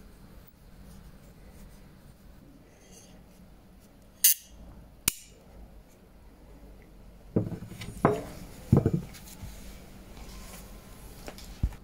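A hand tap snapping in a thread hole in a steel scissor blade: two sharp metallic cracks about four and five seconds in. Then the steel scissors and the tap wrench are set down on a wooden workbench, clattering and knocking for a couple of seconds.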